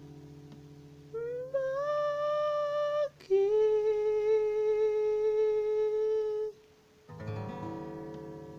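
An acoustic guitar chord rings out and fades, then a voice hums two long wordless notes, the first sliding up into its pitch. After a brief pause, another guitar chord is strummed near the end.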